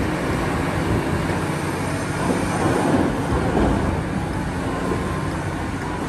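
Caterpillar 6015B hydraulic mining excavator at work, its engine and hydraulics giving a steady rumble that grows a little louder and rougher around the middle.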